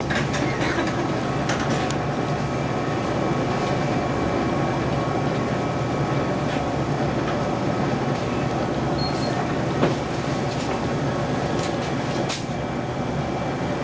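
Steady hum and hiss of shop refrigeration, the compressors and fans of freezers and refrigerated meat display cases, with a few light clicks and knocks, one a little louder about ten seconds in.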